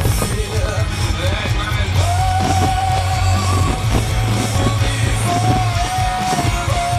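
Rock song with singing, the soundtrack of a pyromusical fireworks show. Long held notes come in about two seconds in and again near the end.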